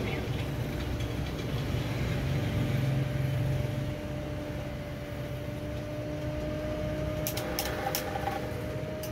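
Electric coil-winding machine running with a steady hum, turning a transformer bobbin as wire is wound onto it for a welding machine's coil. A few light clicks near the end.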